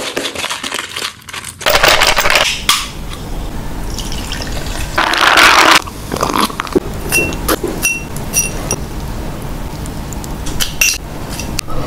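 Mukbang table sounds: a plastic jar and glass bowls handled with rattles and clicks, a loud sip of an iced drink about five seconds in, then a run of short, bright clinks of glassware.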